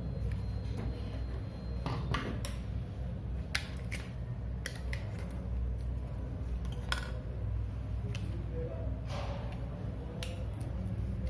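Scattered small clicks and taps of hand tools working on a laptop charger, irregular and a second or so apart, over a steady low hum.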